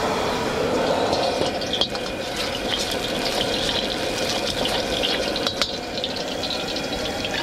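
High-powered propane wok burner running under a wok, with fresh oil crackling and sizzling as it is ladled in and swirled around the hot, empty pan. Two light knocks come through the steady noise.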